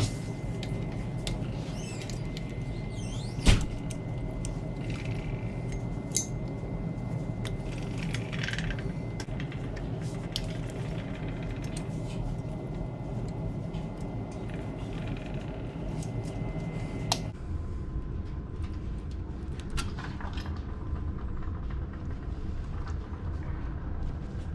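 Occasional sharp metallic clanks and clinks of tools and parts during front brake caliper and hub disassembly on a pickup. The loudest comes a few seconds in, over a steady low hum.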